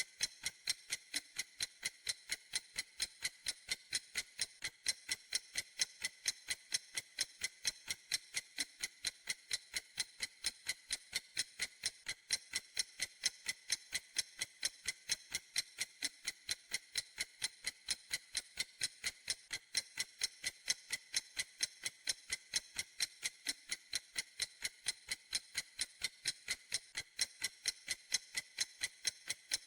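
Clock ticking at an even, unchanging pace, a few sharp, high-pitched ticks every second.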